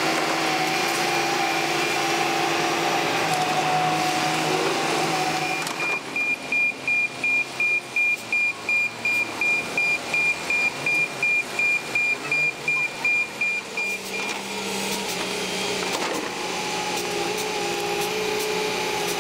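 Caterpillar crawler excavator's diesel engine and hydraulics running steadily. About six seconds in, a dump truck's reversing alarm starts beeping at one high pitch, about two and a half beeps a second, for about eight seconds, then stops and the engine is heard alone again with a few short knocks.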